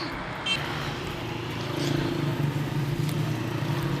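A motor vehicle engine running: a steady low hum that grows louder about two seconds in.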